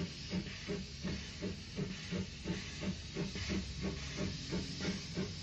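Steam locomotive puffing steadily as the train pulls out, about three exhaust beats a second over a constant hiss of steam.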